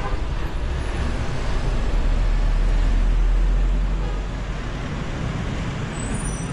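Street traffic: a steady low rumble of passing vehicles, swelling for a couple of seconds around the middle and then easing off.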